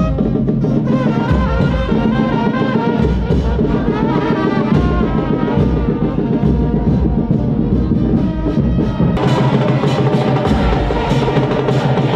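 A live street band plays, several trumpets carrying a melody over a steady drum beat. About nine seconds in the percussion grows louder and brighter and the trumpet lines fade back.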